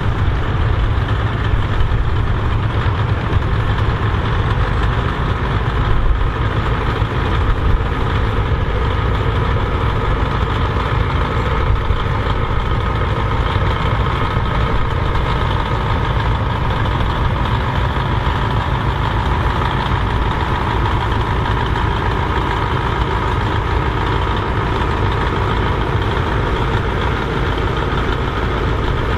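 Tractor engines running steadily as tractors drive by, with a strong low rumble.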